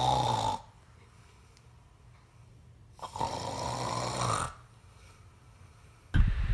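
A sleeping man snoring: two long, rasping snores about three seconds apart, with quiet breaths between. Near the end comes a sudden louder jumble of low thumps.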